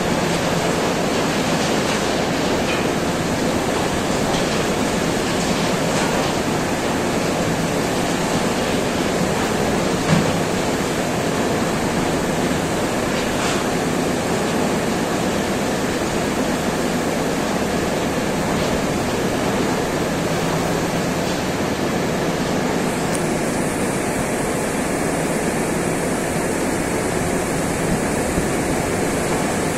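Steady rushing roar of coal pouring from a rapid loading system's chute into a rail wagon, with a single knock about ten seconds in. The sound turns a little duller about three quarters of the way through.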